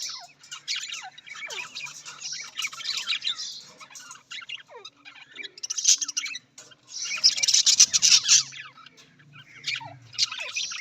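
Budgerigars chattering: overlapping chirps, warbles and short squawks in uneven bursts, loudest about two-thirds of the way through.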